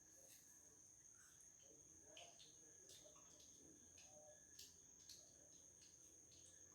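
Near silence: a faint, steady high-pitched whine throughout, with a few soft clicks and faint murmurs.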